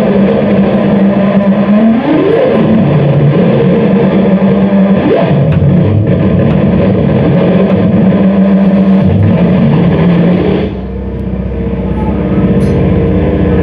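Loud experimental live music: a dense, noisy drone with held tones that slide up and down in pitch. About eleven seconds in, the noisy upper layer drops out, leaving a low rumble under steady held tones.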